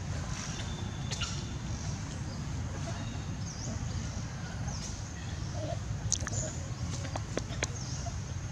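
Outdoor woodland ambience: a steady low rumble with several short, high bird chirps that dip and rise in pitch, and a few sharp clicks in the second half.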